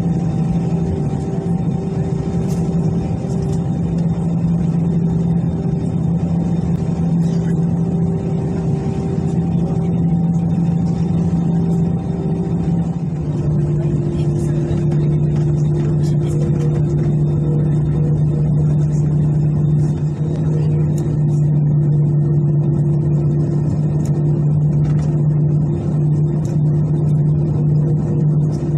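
Airbus A320 cabin noise with the CFM56 jet engines running: a steady hum and rumble with a held tone that steps slightly lower in pitch about halfway through.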